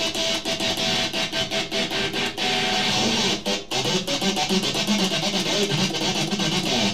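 Distorted electric guitar chopped rapidly on and off by flicking the pickup selector switch with one pickup's volume turned down, used as a makeshift kill switch, giving a fast stuttering rhythm. The stutter is fastest in the first half; after that, held notes come through that are still broken up.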